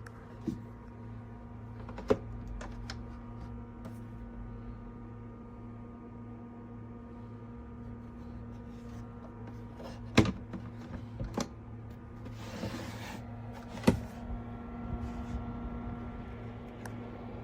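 Koolatron 4-litre mini fridge running with a steady electrical hum. Several sharp clicks and knocks sound over it, the loudest about ten and fourteen seconds in, with a brief rustle between them.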